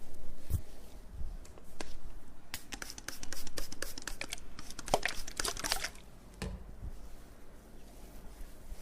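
Close handling sounds from hands: crinkly rustling and crackling with scattered sharp clicks, densest in the middle and thinning out towards the end.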